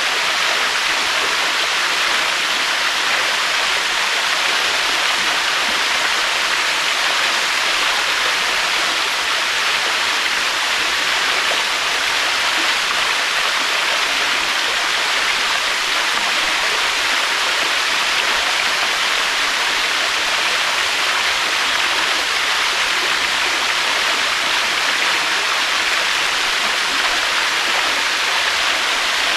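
Waterfall: a steady, even rush of falling water, with no rise and fall of waves.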